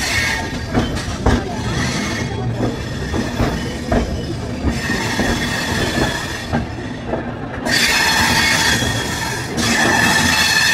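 Passenger coach wheels rolling slowly over station tracks and points, with knocks as the wheels cross rail joints. High-pitched wheel squeal comes in about halfway through and grows louder near the end.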